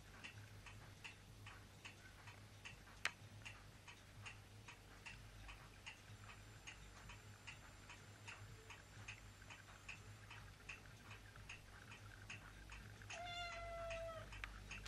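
A tabby kitten gives one short meow near the end, over a faint, steady ticking of about three ticks a second. A single sharp click comes about three seconds in.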